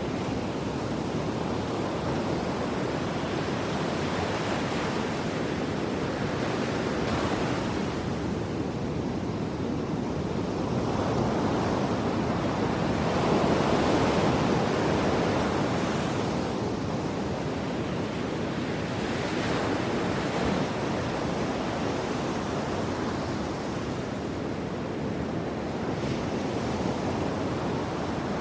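Rushing noise of waves washing in, swelling and ebbing every few seconds, loudest about halfway through.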